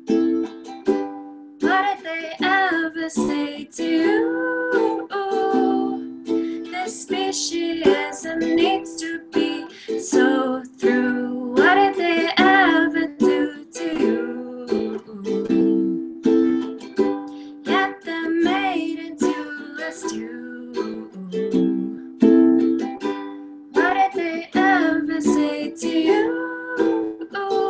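A woman singing a song to her own ukulele accompaniment, her voice wavering with vibrato on held notes over the ukulele chords.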